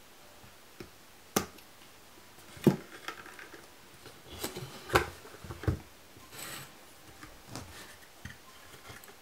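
Scissors snipping jute twine, then a handful of sharp wooden clicks and knocks, with soft rustles, as a small wooden frame and its twine-wrapped legs are handled.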